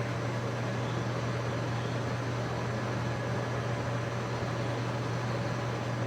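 Steady low hum with an even hiss, the running noise of an indoor ventilation or air-conditioning system.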